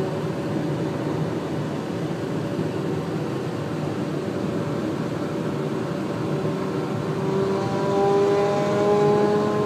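Steady road and tyre noise heard from inside a car at highway speed. Near the end an engine tone grows louder and climbs slowly in pitch.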